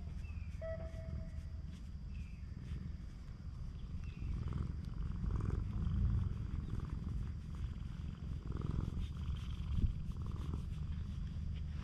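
Orange-and-white cat purring steadily as its chin is scratched.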